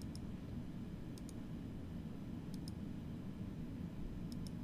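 Computer mouse button clicked four times, each click a pair of quick clicks as the button is pressed and released, over a steady low hum.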